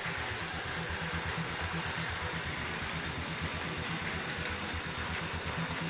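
Small motor of a cardboard model locomotive running steadily as it pulls two wagons along a cardboard track, with a fast, even low rattle.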